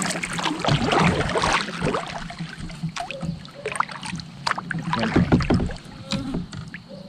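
Sounds of moving about in a kayak: water splashing and sharp knocks on the hull. They come in two louder spells, in the first two seconds and again around five seconds in, and fade near the end.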